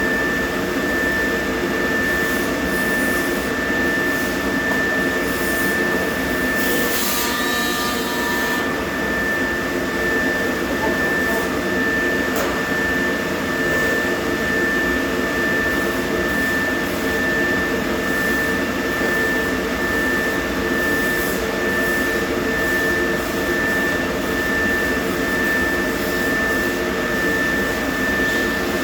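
A motor-driven machine running steadily with a constant high whine. About seven seconds in, a harsh noise lasts a little over a second.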